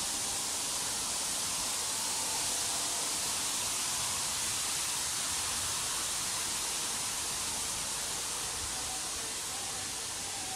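A steady, even hiss, brightest in the high range, with a few faint held tones now and then.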